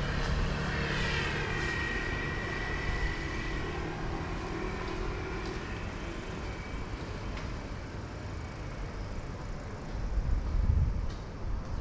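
A motor vehicle passing and fading away. Its high whine drops in pitch, then holds, as the sound slowly dies down. A swell of low rumbling noise comes near the end.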